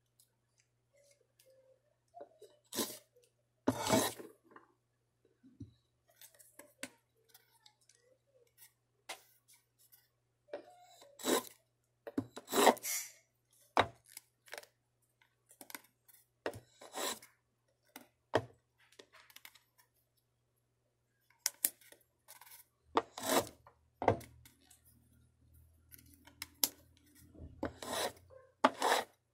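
Small wooden kumiko pieces being worked and handled by hand: irregular taps, clicks and short scraping rubs with pauses between them, over a faint steady low hum.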